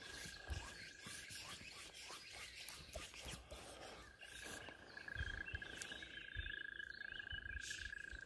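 Outdoor riverbank ambience: a steady high-pitched drone from animals runs throughout, with short bird chirps in the second half and scattered low thumps and knocks.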